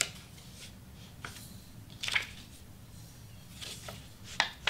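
Sublimation print paper being lined up and wrapped around a tumbler blank by hand: a handful of short, soft paper rustles and rubs, the loudest about two seconds in and another near the end.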